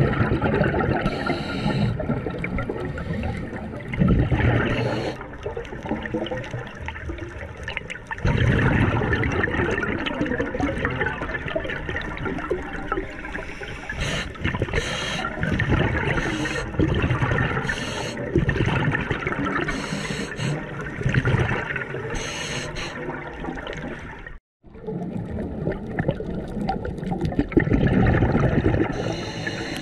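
A scuba diver's regulator breathing underwater, heard through a GoPro's underwater housing: every two seconds or so an exhalation comes out as a loud rush of bubbling air, with quieter breath through the regulator in between. The sound drops out briefly about three-quarters of the way through.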